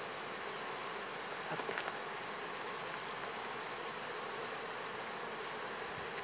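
Steady hum of many honeybees swarming over the frames of an opened hive. A few faint clicks come about two seconds in, as the hive tool works the wooden frames loose.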